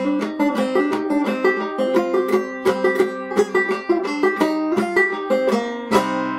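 1903 Fairbanks Whyte Laydie #2 open-back banjo played clawhammer style in double C tuning (gCGCD), in C minor: a quick run of plucked notes and brushed strokes. About six seconds in, a final struck chord is left to ring and fade.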